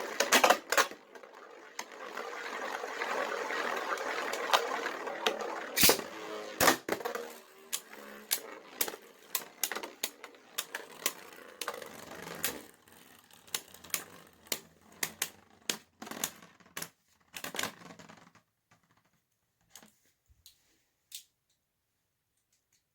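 3D-printed Beyblade spinning tops whirring as they spin, then clashing in a long run of sharp clacks that grow sparser and fainter as the tops slow down.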